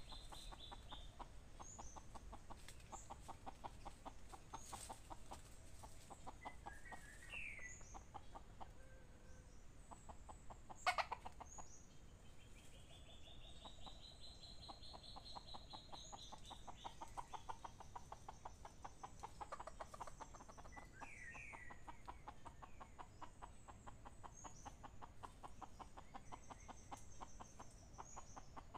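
Red junglefowl clucking faintly while foraging, with a few high chirps and calls from other birds. A single sharp click or snap about eleven seconds in is the loudest sound.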